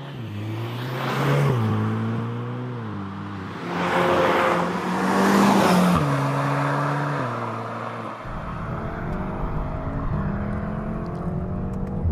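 Volkswagen Golf R's turbocharged 2.0-litre four-cylinder pulling hard under full throttle, the revs climbing and then dropping abruptly twice in the first few seconds as the DSG gearbox shifts up on the paddles. The revs climb again, fall away, and settle to a steady drone near the end.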